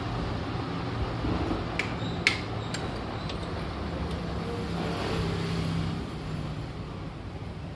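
A steady low background rumble like distant road traffic, with two sharp clicks about two seconds in.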